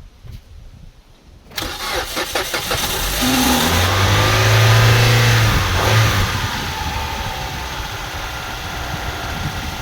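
A 2003 Mitsubishi Lancer ES's four-cylinder petrol engine is cranked by the starter for about a second and a half, catches, and flares up in revs before settling to a steady idle. This is its first start after the rocker cover was refitted with new gaskets, and it idles at the correct revs.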